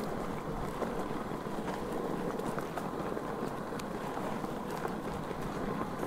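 Steady rolling noise with scattered small clicks and knocks: an Inmotion V11 electric unicycle riding over a rough, rocky dirt trail.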